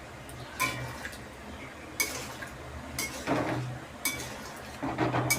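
Cooking spoon stirring a curry in a pan, knocking and scraping against the pan about six times.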